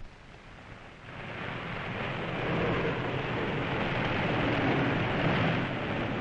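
Piston aircraft engines droning, growing louder about a second in and then holding steady.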